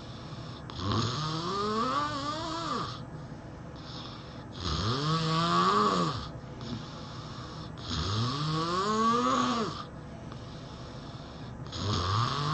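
A person snoring heavily in sleep: four long, rattling snores about every three and a half seconds, each rising in pitch, with quieter breaths between them.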